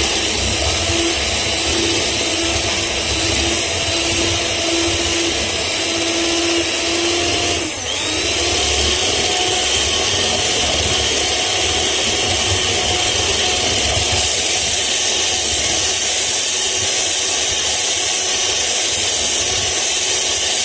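Electric hand mixer running with its beaters in a bowl of eggs and sugar: a loud, steady, noisy motor drone. About eight seconds in it dips briefly, then runs on with a changed tone.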